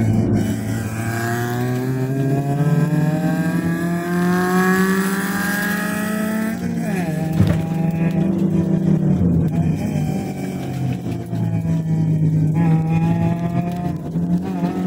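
Proton Saga FLX's Campro four-cylinder engine under racing load, heard from inside the cabin. Its pitch climbs smoothly for about six seconds with no gear-change steps, as through a CVT, drops sharply about halfway, holds steady, then climbs again near the end.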